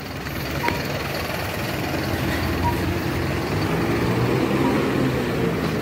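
Street traffic with a large vehicle's engine running close by, such as a bus, growing louder over the last few seconds.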